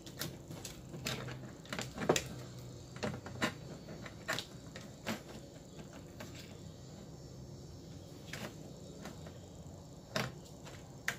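Scattered light clicks and knocks of a replacement power supply circuit board being handled and set into an LED TV's metal back chassis, with its cable connectors being pushed in; the knocks come more often in the first half, with two sharper clicks near the end.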